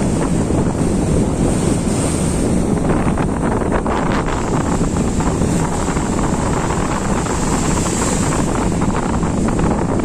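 Sea surf breaking and foam washing up the beach, steady and loud, with heavy wind buffeting the microphone.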